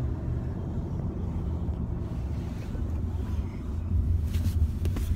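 Steady low rumble of a moving car heard from inside the cabin: engine and road noise. A few brief rustles near the end.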